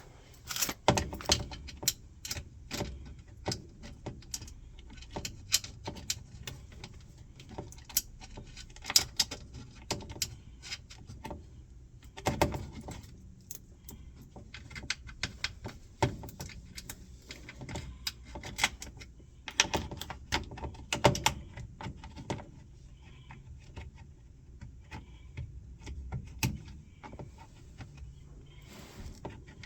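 Hand tools and washer parts being handled: irregular metallic clicks, clinks and knocks, coming thickly at first and thinning out about two-thirds of the way through.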